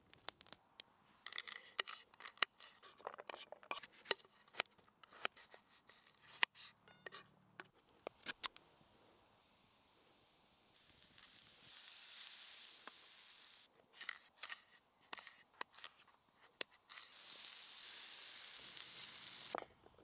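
Sharp crackles and clicks, from the fire and from handling food and utensils, run through the first half. They are followed by two stretches of steady sizzling, each about three seconds long, from food frying in a metal pan over a wood fire.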